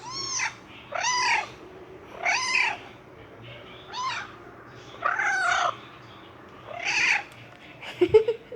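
Recorded cat meows played back one after another: six short meows about a second apart, each rising and falling in pitch. A few clicks follow near the end.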